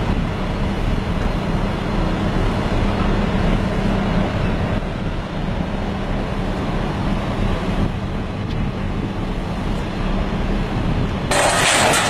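A heavy machine's engine runs steadily with a low hum. About 11 seconds in, a louder, harsher noise starts abruptly.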